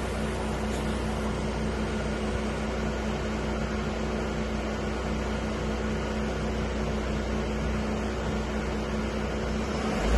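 A 2000 Audi A3's engine idling steadily, a constant low hum with an even drone.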